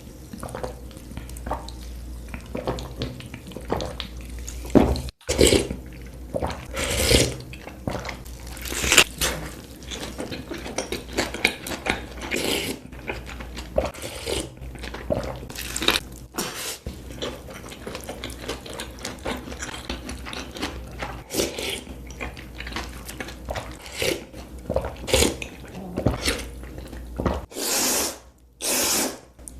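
Close-miked eating sounds: wet chewing and slurping of hotpot food, in short, irregular bites and sips, over a faint steady low hum.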